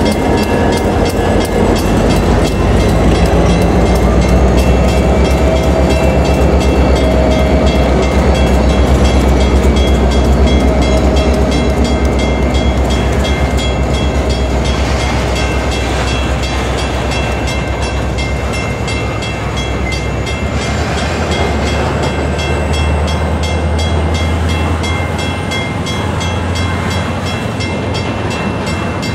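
Loaded freight cars (boxcars, centerbeam lumber flats and covered hoppers) rolling past close by: a loud, steady rumble of steel wheels on rail with a fast clatter, easing off somewhat after about two-thirds of the way through.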